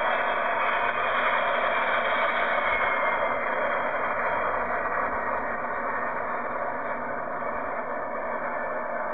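Twin-engine jet airliner's engines on climb-out after takeoff: a steady rushing noise that slowly fades as the plane moves away.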